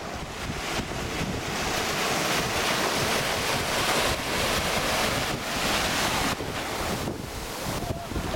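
Small surf breaking and washing in shallow water, with wind buffeting the microphone; the rush swells about two seconds in and eases off about six seconds in.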